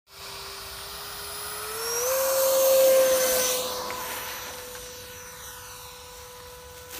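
A scratch-built RC jet's 70 mm electric ducted fan whines steadily, its pitch stepping up about two seconds in as the throttle opens for the takeoff run. It is loudest around three seconds in, then fades as the plane moves away and lifts off.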